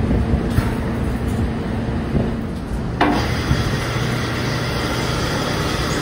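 Belt-driven sawmill machinery running: a V-belt pulley and gearbox turning, with a steady low hum. A sharp click comes about three seconds in, after which a higher whirring hiss joins the hum.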